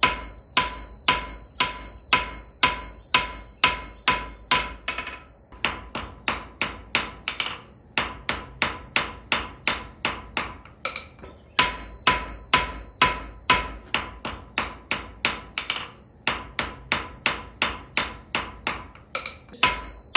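Blacksmith's hammer striking on an anvil in a steady rhythm, about two to three blows a second, many blows leaving a short metallic ring. The rhythm breaks off briefly a few times and starts again.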